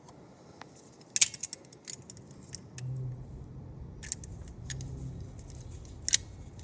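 Irregular sharp metal clicks and clinks of hand tools and hardware being handled while a bolt is run up on a battery cable end, the loudest about a second in and again near the end. A low hum comes in about three seconds in.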